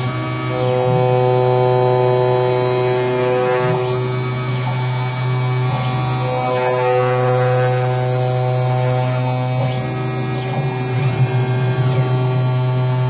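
Steady low electric hum of a CNC knife-cutting machine at work as its blade tool cuts a foam sheet, with higher sustained tones that shift every few seconds.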